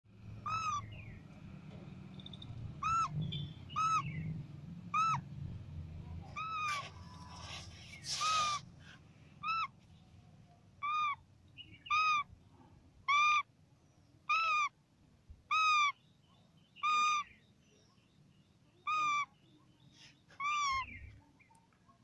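Indian ringneck parakeet calling over and over, a short call that rises and falls slightly, roughly one every second or so, about fifteen in all. A brief scuffing noise comes about eight seconds in.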